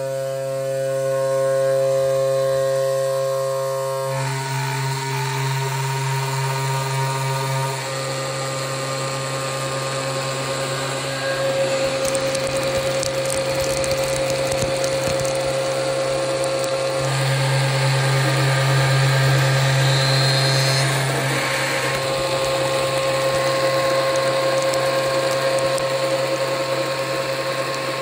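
CNC router spindle driving a 16 mm four-flute end mill through a thick block of PE500 polyethylene: a steady spindle whine with the hiss of the cut, growing louder and noisier about eleven seconds in.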